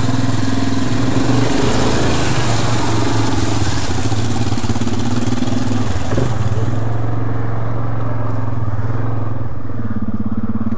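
ATV engine running steadily at low revs, with a hissing wash of noise over it for the first six seconds or so. Near the end the engine note briefly dips and climbs again.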